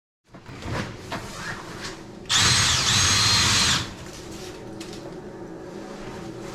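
Drill spinning a dryer vent cleaning brush in one loud burst of about a second and a half, its motor whine dipping and rising in pitch. A steady hum runs underneath, from the shop vac pulling suction through the vent line, with a few knocks and rubs from the brush before the drill starts.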